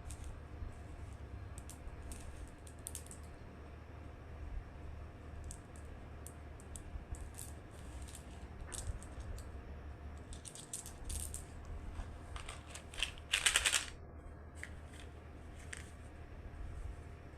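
Plastic sweet wrappers rustling and crinkling in short, scattered bursts as candy packs are handled and opened, with one louder, longer rustle about thirteen seconds in.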